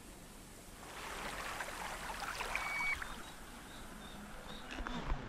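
Faint steady outdoor hiss of water and breeze, with one short, high electronic beep about two and a half seconds in.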